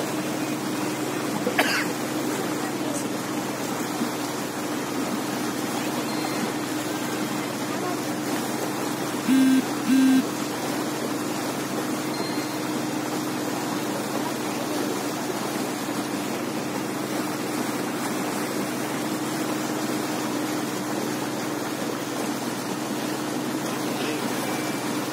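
Small motorboat's engine running steadily under a hiss of wind and water, with two short, loud beeps about nine and ten seconds in.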